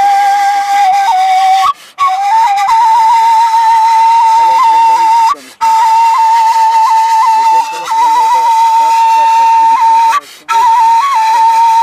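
Kaval, the Turkish end-blown shepherd's flute, playing long held high notes decorated with quick grace-note flicks. The tune breaks off three times for a short breath.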